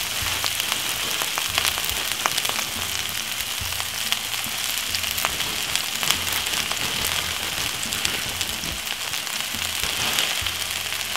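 Fresh stir-fry vegetables (bean sprouts, Chinese cabbage, carrot and pepper) sizzling in hot oil in a non-stick wok: a steady frying hiss with frequent small crackles and pops.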